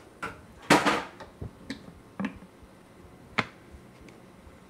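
Handling sounds at a Vitamix blender: a few sharp plastic clicks and knocks, with a brief scrape about a second in and a loud click past three seconds, as the container lid is worked by hand.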